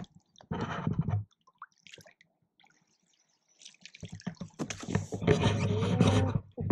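Water splashing as a large bass held at the surface is let go and kicks away, about half a second in. From about four seconds in there is a louder, longer rush of noise.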